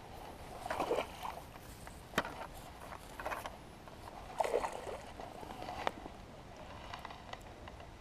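A hooked pike splashing at the water's surface as it is brought to a landing net: several brief splashes, with a couple of sharp clicks between them.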